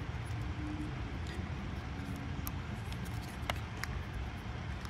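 Faint light clicks of plastic parts as a car's interior door handle and its small plastic light-diffuser piece are handled, a few of them in the second half, over a steady low outdoor rumble.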